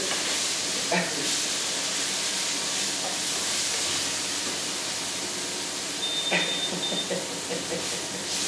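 Pan of sauce sizzling on the stove, a steady frying hiss.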